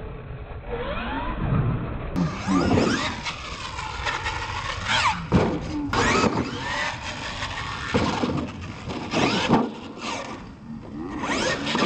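Radio-controlled monster truck's motors whining, rising and falling in pitch as the throttle is worked, with several sharp thuds as the truck lands and tumbles on the dirt.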